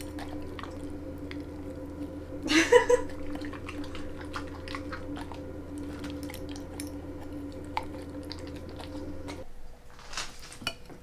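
A husky chewing and taking meat off a metal fork, with many small clicks. A short, rising, pitched vocal sound comes about two and a half seconds in and is the loudest moment.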